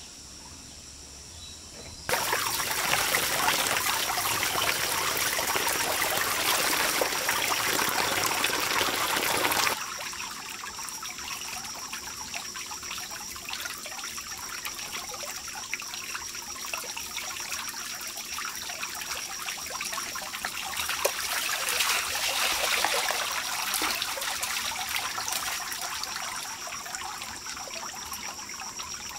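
Water pouring and splashing loudly for about eight seconds, stopping abruptly. After that, a quieter trickling and dribbling of water as a plucked bird is washed by hand on bamboo slats. A steady thin high tone runs underneath.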